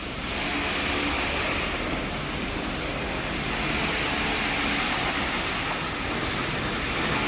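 Steady rushing background noise without distinct knocks, tones or voices.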